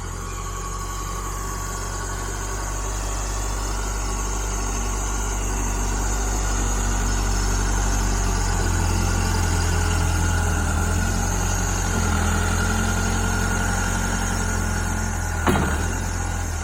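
Backhoe engine running steadily, growing louder over the first half, with a thin steady high whine over it, a squeal the owner believes comes from a bearing on the fan. A brief knock about fifteen seconds in.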